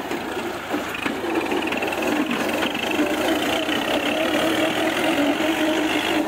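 Diesel engines of a Kubota MU4501 and an Eicher 551 tractor running under heavy load while chained back to back in a tug of war. The engine note holds a steady pitch, grows louder over the first two seconds, then stays steady.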